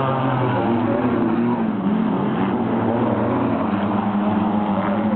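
Several wingless sprint car engines racing around a dirt speedway track, their pitch rising and falling as the cars accelerate, lift off and pass.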